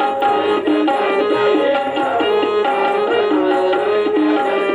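Background instrumental music: a melody moving in short held notes over a steady drum rhythm.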